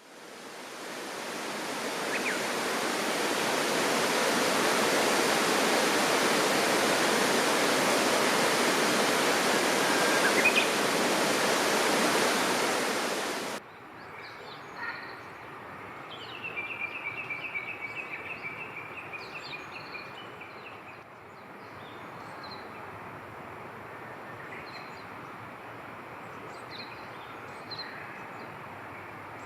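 Steady rush of flowing water that fades in and cuts off abruptly about halfway through. A quieter outdoor background follows with birds calling: a rapid run of repeated notes lasting a few seconds, then scattered short chirps.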